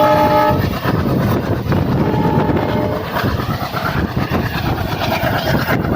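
Train passing at speed with a steady rumble and clatter of wheels. Its locomotive horn sounds as a chord of several tones at the start, stops about half a second in, and sounds again more faintly from about two to three seconds in.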